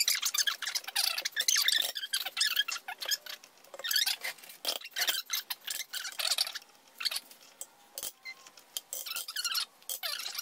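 Silicone spatula and a metal spoon scraping thick cream cheese off a stand mixer's wire whisk and the sides of its stainless steel bowl, with the mixer stopped: irregular squeaks, scrapes and light clinks.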